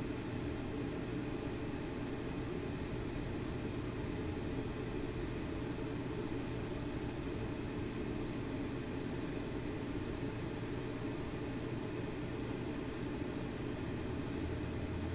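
A steady, unchanging low mechanical drone, like a motor running.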